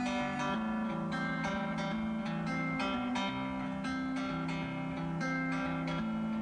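Background music: an acoustic guitar picking a steady run of notes.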